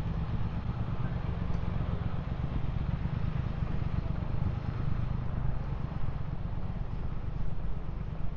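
Busy city street ambience: traffic running steadily, with a constant low rumble.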